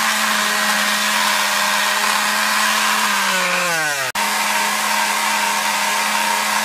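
Electric palm sander running at full speed as it sands a wooden tool handle down to a taper, a steady whining hum over a rasping hiss. About three seconds in its pitch drops for about a second, then it cuts out briefly and comes back steady.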